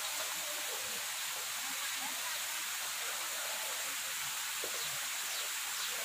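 Water from a small rock spring trickling and splashing down wet stone into a channel: a steady hiss.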